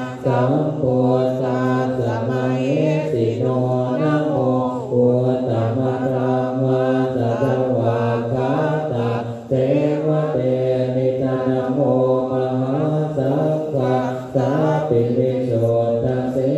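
Group of Theravada Buddhist monks chanting Pali in unison, a steady low drone of male voices that runs on with only a few brief dips.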